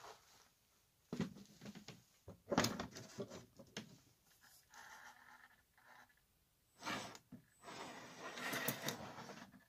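Element RC Trailrunner 1/10-scale crawler's electric motor and gearbox whirring in short bursts of throttle as it crawls over the obstacle, with scrapes and knocks of tyres and body against the wood. The sound comes in about five irregular bursts, fairly quiet.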